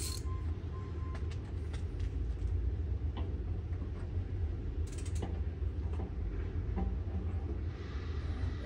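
Scattered light metallic clicks and clinks of bolts being turned in by hand on a steel mower deck, over a steady low hum.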